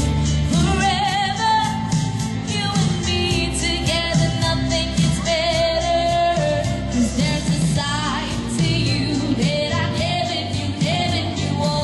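A woman singing a pop song live into a microphone, amplified through a PA loudspeaker, backed by an electronic keyboard with a steady beat.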